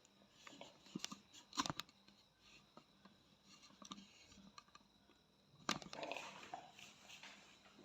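Faint handling noise: a few sharp clicks about one and one and a half seconds in, then another click near the end followed by about a second of rustling.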